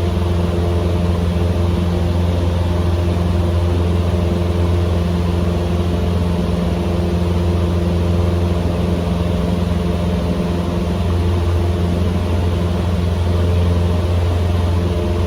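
Cessna 150M's Continental O-200 four-cylinder engine and propeller droning steadily in flight.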